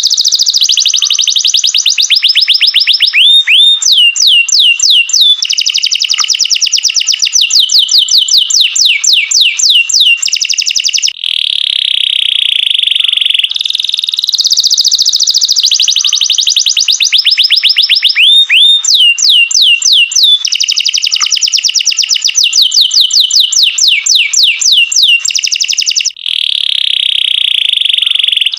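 Domestic canary singing a long, loud song of rolling trills, fast runs of repeated notes and quick upward-sweeping notes, with a short break about every 13 seconds. The same song passage plays twice over.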